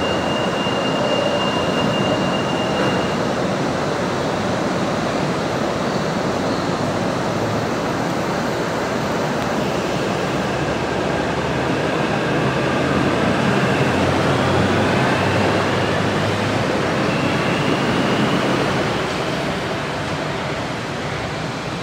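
Monorail trains of the M fleet (Bombardier Innovia Monorail 300) moving on the elevated concrete guideway: a steady running noise from the rubber-tyred cars with electric motor whine, rising in pitch through the middle and loudest just before the end, then fading.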